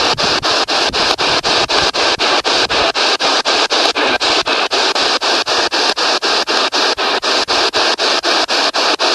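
P-SB7 spirit box sweeping the radio band: a steady hiss of static chopped into short bursts about five times a second, with a faint steady high tone underneath. No voices come through the static.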